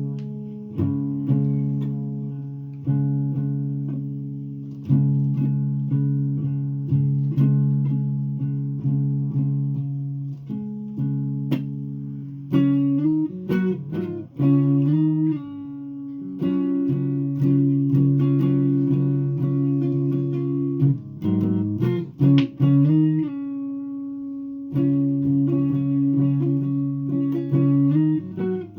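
A guitar played solo: chords struck and left to ring, about one a second, turning into a busier pattern of chords and picked notes about halfway through.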